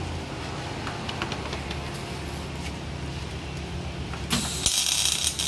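Welding on a scooter's rear grab-rail mount: a low steady hum with a few faint clicks, then about four seconds in the welding arc strikes with a loud, steady hiss that carries on.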